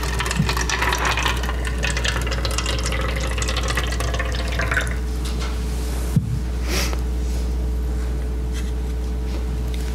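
Water poured into a cup, the filling sound rising in pitch over about five seconds, then a single knock about six seconds in.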